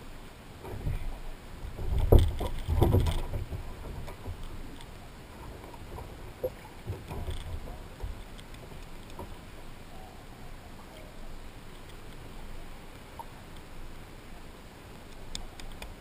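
Water splashing and knocks against a plastic kayak as a dog is hauled out of the sea onto the kayak, loudest about two to three seconds in, followed by scattered small knocks.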